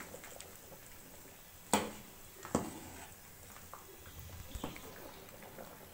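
Metal ladle stirring thick curry in a steel kadai, knocking sharply against the pan twice in the middle, with a few fainter clinks.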